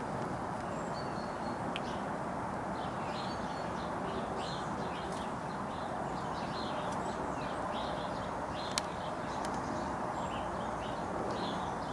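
Sparrows chirping: many short, high chirps scattered throughout over a steady low background rush, with one sharp click about three-quarters of the way through.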